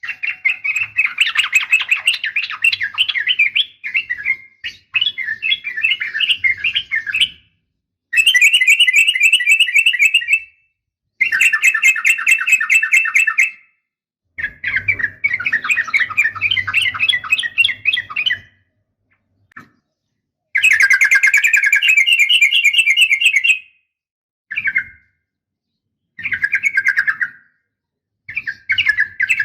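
Yellow-vented bulbul (trucukan) giving bursts of fast chattering calls, about nine of them, each one to four seconds long and separated by short silent gaps. It is a lure recording of a trucukan's call, used to set other bulbuls answering.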